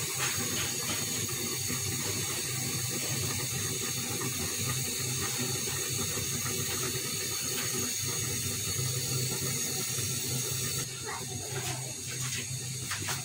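Covered karai of curry simmering on a gas stove burner: a steady hiss of bubbling and flame, a little quieter about eleven seconds in.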